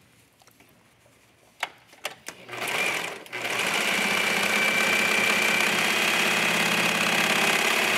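A few handling clicks, then a serger (overlock machine) starts up about two and a half seconds in. It stops for a moment, then runs steadily at speed, sewing a seam in knit fabric.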